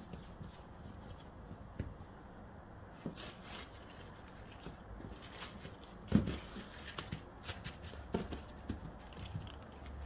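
Hands handling bread dough on a work surface: soft rubbing and scattered light taps, with one louder thump about six seconds in.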